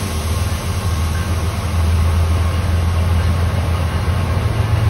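Diesel trains at close range: a steady low engine rumble with rail noise from an Amtrak Pacific Surfliner beside the platform and BNSF freight locomotives coming in on the next track, growing a little louder about two seconds in.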